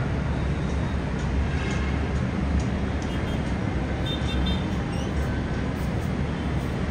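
Steady rumble of dense road traffic, with a few faint higher tones about four seconds in.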